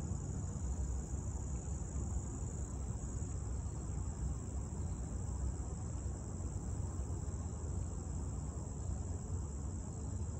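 Steady chorus of insects, one high unbroken pitch, over a low steady rumble.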